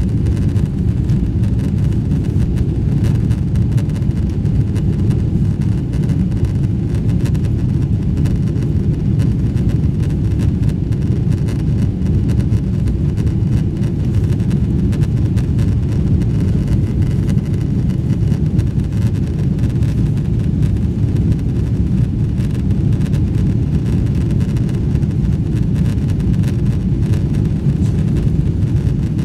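Steady low rumble inside the cabin of a Boeing 777-300ER, from its GE90 engines and the airflow around the fuselage, holding even throughout.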